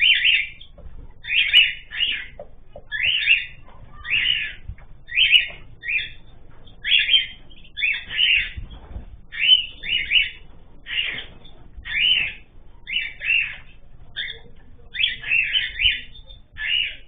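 Cage birds calling: short, high calls repeated one to two times a second.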